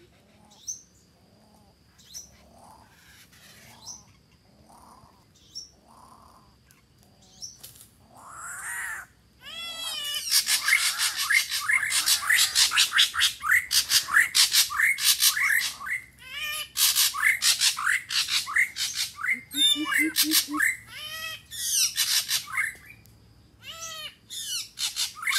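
Greater coucals calling: a few soft low notes, then from about ten seconds in a long run of loud, harsh, rapid squawking chatter, with a short series of deep hooting notes near the end.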